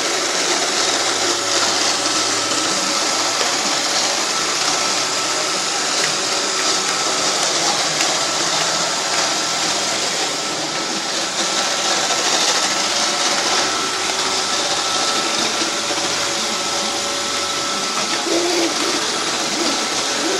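Roomba 560 robot vacuum running: a steady rushing whir with a thin, constant whine.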